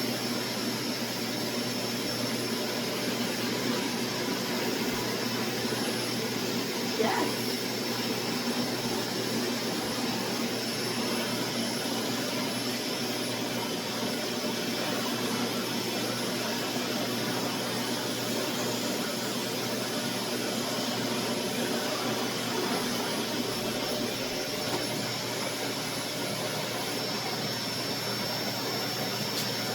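Vacuum cleaner motor running steadily, a constant whooshing noise with a fixed whine, and a brief rising sound about seven seconds in.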